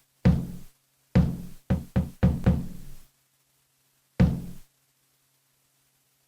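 Drum samples triggered one at a time on an Akai Force: about seven irregularly spaced hits, each heavy in the low end with a short decay. They stop about two-thirds of the way in.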